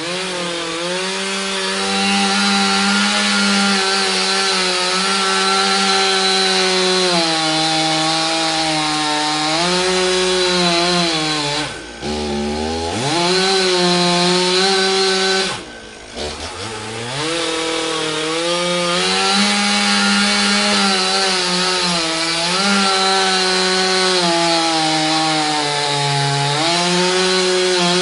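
Chainsaw running at high revs and cutting wood, its engine pitch wavering under load. Twice near the middle the revs drop sharply and then climb back up.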